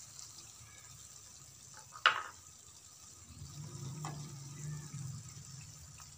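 A steel spoon scooping and stirring thick, oily masala in a pan, with soft wet sounds. There is one sharp clink of the spoon against the pan about two seconds in, and a lighter knock near four seconds.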